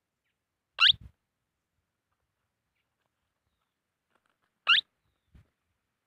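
Young parakeet giving two short shrill calls, about four seconds apart, each a quick glide up and down in pitch. A faint low bump follows each call.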